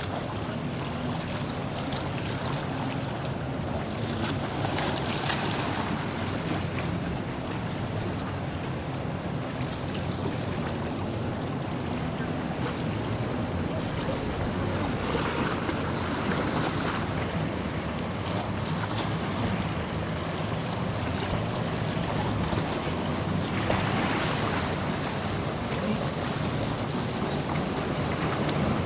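Surf washing against the jetty, with surges about every ten seconds, and wind buffeting the microphone, over the low steady drone of a boat's engines running through the inlet.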